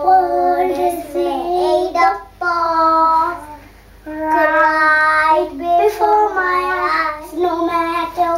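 Young children singing an action song together, holding long notes, with a short break about halfway through.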